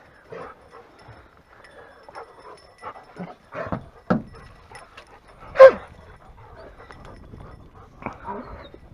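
German shorthaired pointers whining, with one loud falling yelp about halfway through.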